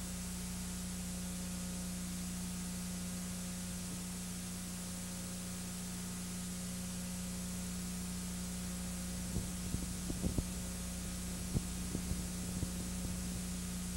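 Steady hiss with a low electrical hum underneath, the noise floor of the film's transfer rather than any sound from the party; a few sharp clicks and crackles come in about nine seconds in.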